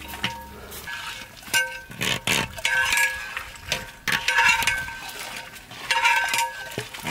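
A long metal ladle stirring chickpeas in a large metal degh pot, scraping and clinking against the sides at an irregular pace. The pot rings faintly after the knocks.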